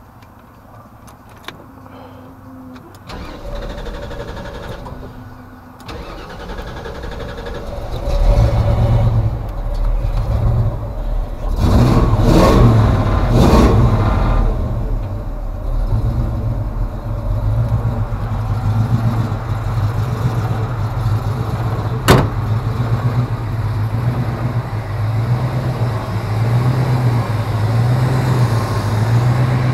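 Utility vehicle's engine started after a quiet spell, coming up about eight seconds in and then running steadily with a low hum, louder for a couple of seconds soon after it catches. A single sharp click comes partway through.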